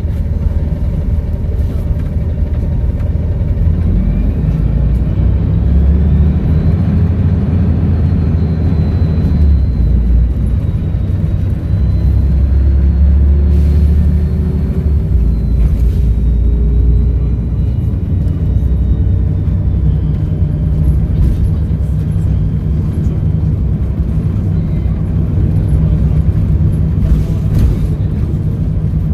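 Volvo B7RLE bus's turbocharged diesel engine running under load, with a steady low drone. A high turbo whistle rises about four seconds in, holds, and falls away again past the middle.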